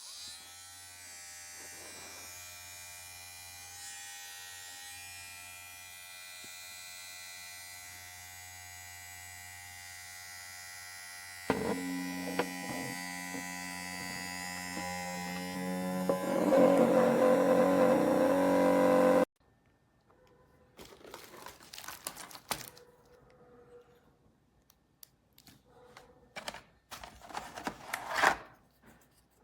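GLAKER cordless electric hair clipper switched on and running with a steady buzzing hum. About 12 seconds in its tone changes and it gets much louder. It cuts off abruptly a little after 19 seconds, followed by scattered clicks and handling knocks.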